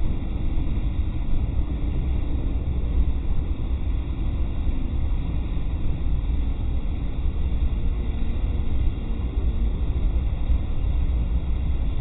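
Steady low rumble of a forced-air torpedo space heater running, with fire burning around its outlet.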